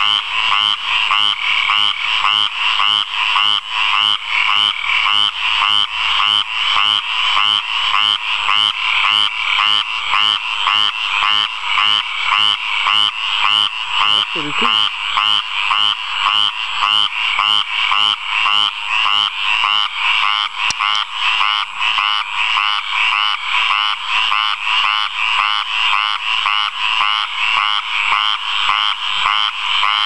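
Male frog's mating call from a puddle, its throat sac swelling with each call: a continuous, even series of calls repeating about two to three times a second.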